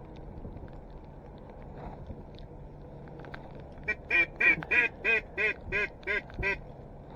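A run of about nine mallard-style quacks, about three a second, starting a little past halfway.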